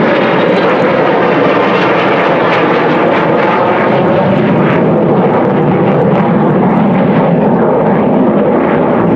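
Saab 35 Draken jet fighter flying a display, its single turbojet giving a loud, steady jet roar.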